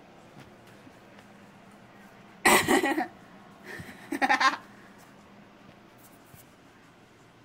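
A person laughing in two short, loud bursts, the second a little over a second after the first.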